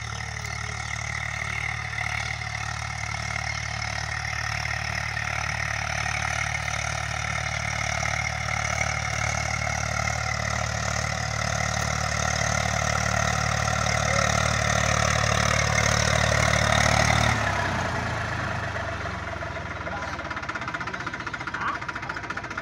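Farm tractor's diesel engine running as the tractor drives closer, growing gradually louder, then easing off suddenly about three-quarters of the way through as it reaches the bank.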